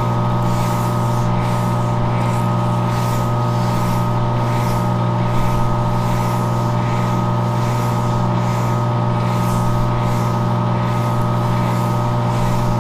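Metal lathe running with a steady motor hum while sandpaper is held against a slowly turning air-compressor crankshaft journal, a scratchy hiss that swells and fades about every two-thirds of a second as it goes round.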